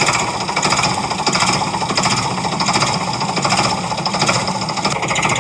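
Rapid mechanical rattling, a dense fine clatter that swells and fades about every half second.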